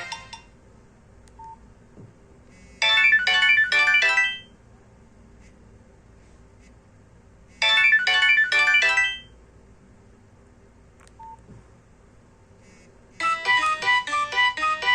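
Nokia C2-01 phone loudspeaker playing ringtones: a short jingle of quick tinny notes plays twice, about five seconds apart, with quiet between. Near the end a new ringtone melody of steady repeating notes begins.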